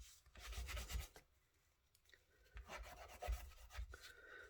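Faint dry rubbing and scratching on paper and card, with soft knocks on the desk, in two short bouts with a quiet gap between.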